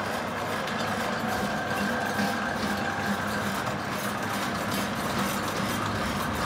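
Commercial planetary mixers running at high speed (third gear): a steady motor and gearbox running noise with a thin, steady high whine.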